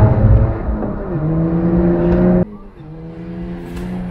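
Car engine running at a steady pitch, with a brief dip in pitch about a second in; midway the sound drops suddenly in loudness and the engine carries on more quietly.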